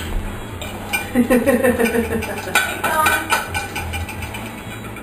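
Plates and cutlery clinking and rattling in an open dishwasher rack as dogs lick them, a scatter of short knocks and chinks.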